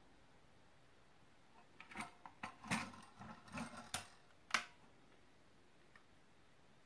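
Metal fittings of a vintage folding plate camera clicking and clacking as it is adjusted by hand: a run of small clicks and clacks starting about two seconds in and lasting about two and a half seconds, ending on a sharp clack.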